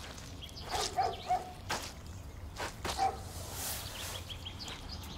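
Footsteps squelching through wet concrete, a few sharp steps. A few short calls and quick high bird chirps sound in the background.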